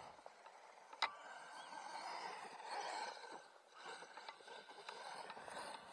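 Small RC truck with a 3000KV brushless motor driving over rough dirt at a distance, its motor and tyres swelling and fading with the throttle. A single sharp click about a second in.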